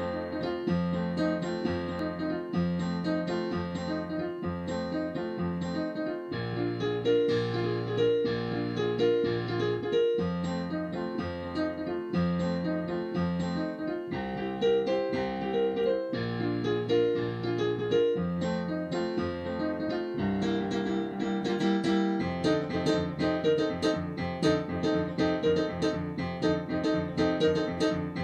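Console digital piano playing boogie-woogie: a repeated rolling left-hand bass figure under right-hand chords and riffs. The playing gets busier and denser about three-quarters of the way through.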